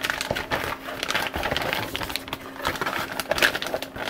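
Rustling and crinkling of a packet of photographic printing paper as a sheet is taken out, with many small irregular clicks. A faint steady hum runs underneath.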